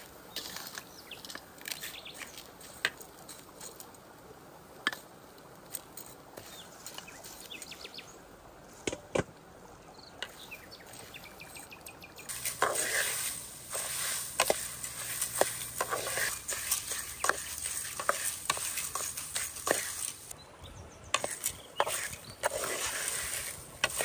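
Outdoor cooking sounds: scattered light clicks and knocks, joined about halfway through by a louder steady hiss with more frequent clicks.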